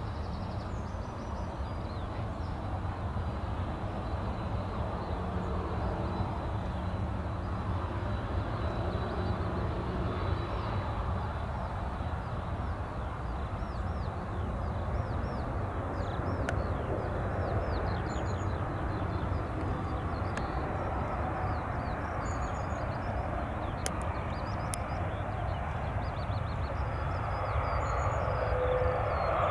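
Twin-engine jet airliner landing: a steady distant engine rumble that grows louder near the end as the aircraft rolls out on the runway. Small birds chirp throughout.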